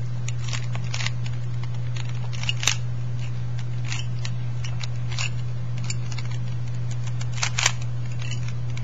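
Rubik's Cube being scrambled: its plastic layers are twisted quickly by hand, giving irregular clicks and clacks several times a second, with two louder clacks, one about a third of the way in and one near the end.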